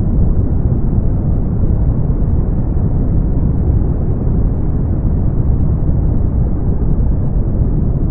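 Brown noise: a steady, deep rumbling hiss, strongest in the bass and fading out toward the treble, with no change or events.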